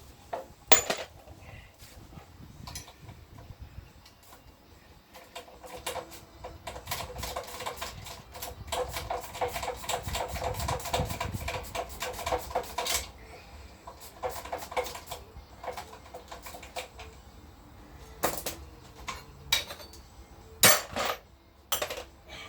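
Hand tools working on a Honda C50 motorcycle's metal parts: scattered metallic clinks and knocks, with a long run of rapid clicking in the middle and a few sharper knocks near the end.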